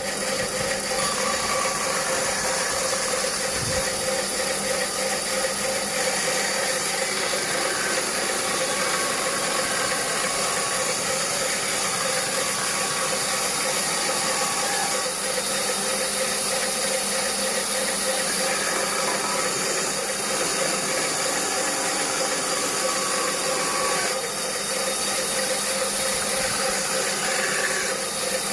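Band saw machine running steadily and cutting wood with a freshly hand-filed blade, a loud even motor-and-blade noise with a constant hum.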